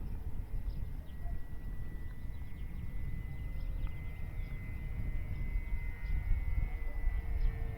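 Electric motor and propeller of a 1.5 m FMS Cessna 182 RC plane in flight: a thin, steady whine that drifts slightly in pitch, with a second lower tone joining near the end. Wind rumbles on the microphone underneath.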